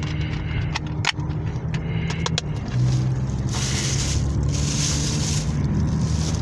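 Car engine running with a steady low hum heard from inside the cabin. Over it come a few sharp clicks of a plastic DVD case and disc being handled, about a second in and again near two and a half seconds, then a rustle of handling midway.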